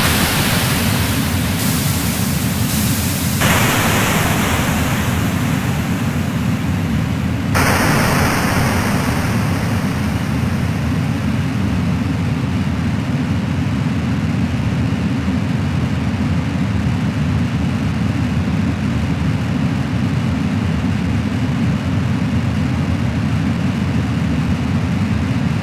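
Harsh electronic noise music: a dense, steady low rumble of noise under layers of hiss that cut in and out abruptly. About seven and a half seconds in, a bright hiss layer switches on sharply, then slowly fades to a thinner steady hiss.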